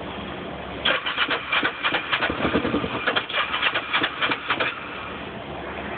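Kawasaki EX500 motorcycle's electric starter pressed for about four seconds, making a rapid, uneven clatter of clicks, and the engine does not start.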